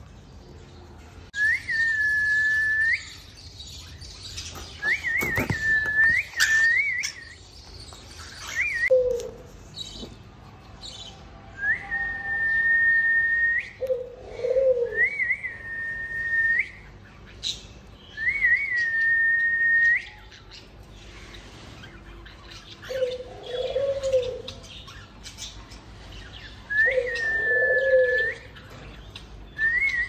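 Cockatiels whistling: a run of about eight long, level whistles, each sliding up at the start and held for a second or two, some opening with a quick trill. Quieter low warbling calls come between them, and there is a short burst of clatter around five to seven seconds in.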